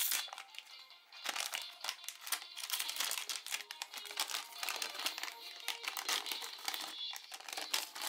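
Foil blind-bag packaging crinkling in quick, irregular crackles as hands handle it and take a small toy figure out, with music playing underneath.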